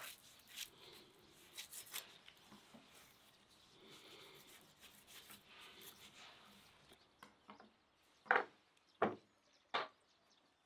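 A knife cutting and scraping through raw meat and fat on a wooden cutting board, with small knocks of the blade against the wood, then three sharp knocks near the end.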